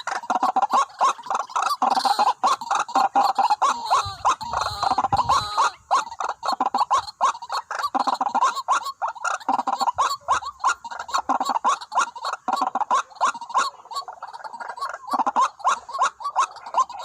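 White-breasted waterhens calling, a fast, continuous run of repeated harsh croaking 'kwak' notes overlapping one another, with a brief low rumble about four to five seconds in.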